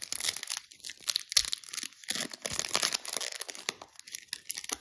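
The foil wrapper of a Bowman Platinum baseball card pack being torn open by hand, crinkling and ripping in quick, irregular rasps.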